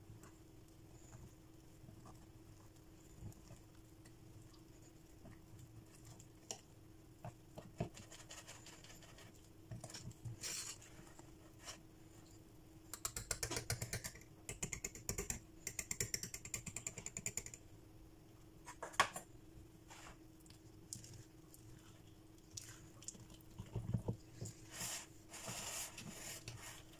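Wire whisk stirring thick chocolate brownie batter in a glass bowl: wet scraping and light clicks of the wires against the glass, coming in bursts that are busiest about halfway through and near the end, over a faint steady hum.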